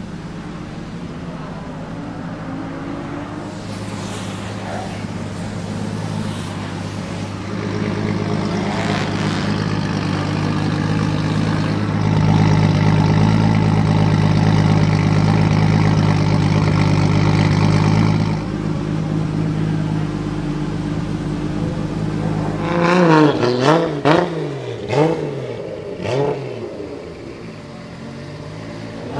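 Single-turbo 2JZ inline-six in a Toyota GT86 idling steadily through its exhaust. About three-quarters of the way through it is blipped up and down a few times in quick succession, then drops back to idle.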